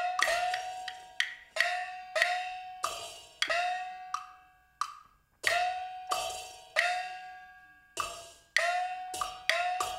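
Percussion accompaniment for Taiwanese glove puppetry: a run of sharp, ringing strikes in an uneven rhythm, each one fading over about a second, with a brief lull around the middle.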